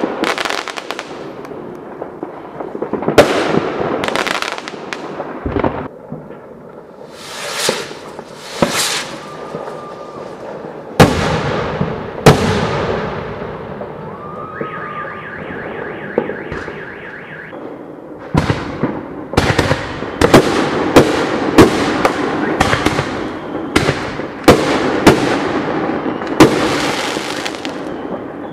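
Fireworks going off, a series of sharp bangs each followed by a rumbling echo. The bangs come spaced out at first, and in the last third they come thick and fast. About halfway through, a short stretch of rapid, even, higher-pitched sound lies between the bangs.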